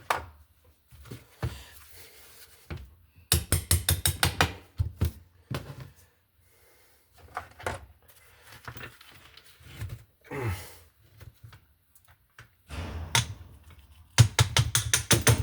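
Knocks and clatter of tools and small parts being handled during a teardown of a linear actuator, with two runs of rapid clicking, about three seconds in and again near the end.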